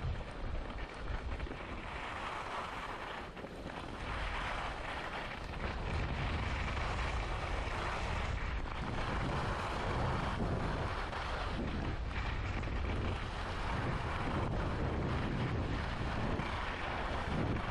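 Wind buffeting the microphone, with skis hissing and scraping over the snow as they run downhill. The low rumble grows stronger about five seconds in, and the hiss swells and eases repeatedly.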